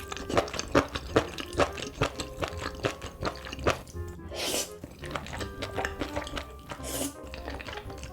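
Background music, with close-miked eating sounds over it: many quick clicks and crunches of chewing, and two louder rushing noises about four and a half and seven seconds in.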